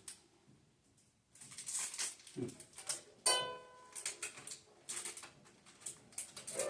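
Ukulele banjo strings ringing out once, struck or plucked, about three seconds in and fading slowly, with rustling and handling noise before and after.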